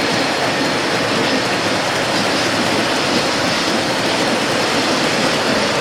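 Model trains running on a display layout: a steady running noise of wheels on track.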